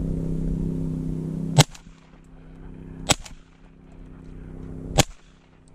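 A shotgun fired three times, the shots about a second and a half and then two seconds apart. A steady low hum runs underneath and is loudest before the first shot.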